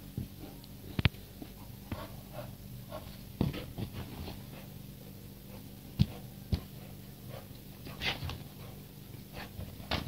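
A Dogo Argentino at play, making short scattered dog sounds, with a few sharp knocks, the loudest about a second in and around six seconds in.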